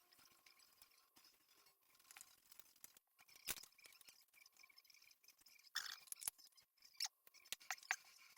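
Near silence with a few faint clicks and taps, the sound of wooden magazine-rack parts being handled and fitted back together; one tap about halfway through and a cluster of them near the end.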